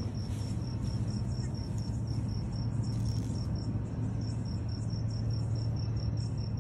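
A cricket chirping outdoors at night, a steady high-pitched trill pulsing about five times a second, over a steady low hum.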